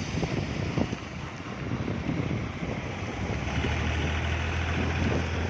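Rushing floodwater of the swollen Munneru river with wind buffeting the microphone; a steady low hum joins about two-thirds of the way in.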